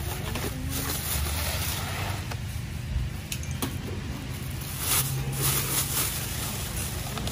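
Thin plastic carrier bags rustling and crinkling as they are opened, filled and handled, over a steady low rumble.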